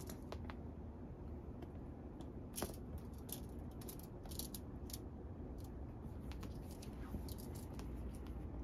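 A cat pawing and kicking at a feather wand toy on a woven bedspread: scattered light clicks and scratches of claws and feathers on the cloth, with one sharper click about two and a half seconds in.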